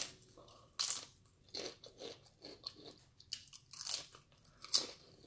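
A person biting and chewing loaded tortilla-chip nachos (On the Border Cantina-style chips topped with ground beef, cheese, salsa and guacamole): a string of sharp, irregular crunches, the loudest about a second in and near the end.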